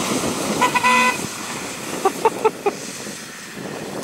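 Car horn: one toot of about half a second near the start, then four short quick toots about two seconds in. Underneath, engines run as off-road 4x4s tow a pickup out of mud.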